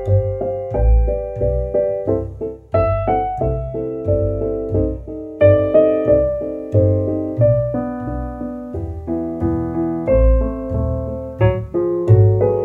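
Background piano music: a steady run of struck notes over a moving bass line.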